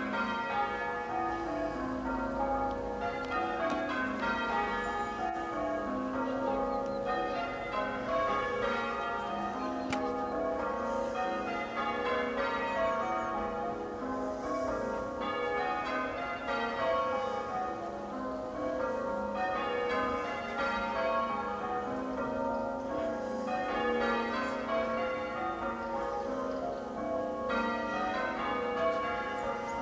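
Church bells ringing a peal in change ringing: a continuous, even stream of strikes whose tones overlap and ring on into each other.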